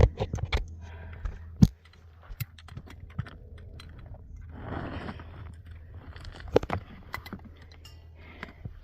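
Gravel and stones crunching and clicking as a hiker steps over rocky ground and handles a loose rock. Sharp knocks are scattered through, with a cluster in the first second, one at about two seconds and another near seven seconds, and a longer crunch in the middle.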